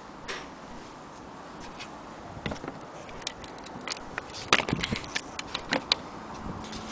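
Vintage Junghans strike wall clock clicking and ticking: a run of sharp, unevenly spaced clicks that begins about a third of the way in and is loudest around the middle.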